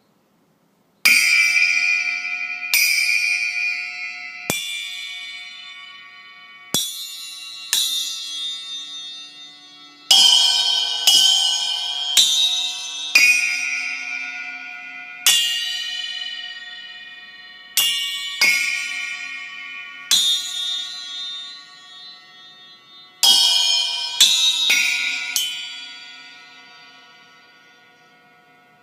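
A slow sequence of bell-like chimes: about fifteen struck notes, some alone and some in quick pairs, each ringing on and dying away slowly. The last notes fade out over several seconds.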